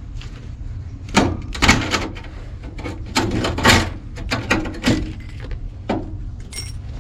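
A string of irregular knocks and clanks, about eight, from metal parts being handled while a condenser's wiring is disconnected, over a steady low rumble, with a brief high squeak near the end.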